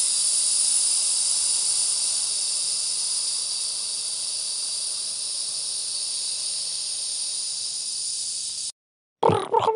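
Breaded mutton chops sizzling in hot frying oil: a steady hiss that eases slightly and cuts off abruptly near the end. After a brief gap a different, pitched sound begins.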